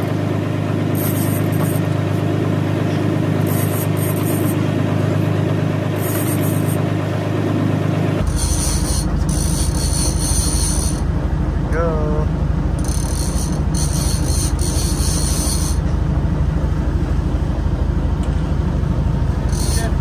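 A steady low engine drone, its sound changing abruptly about eight seconds in.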